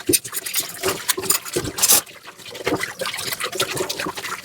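Dishes being washed by hand in a sink: water splashing and trickling, broken by irregular clinks and knocks of dishware, with a louder splash just before two seconds in.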